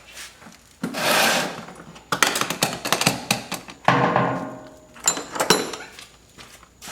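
Metal hand tools clanking and rattling as they are rummaged through and handled, with irregular knocks, scrapes and brief metallic ringing.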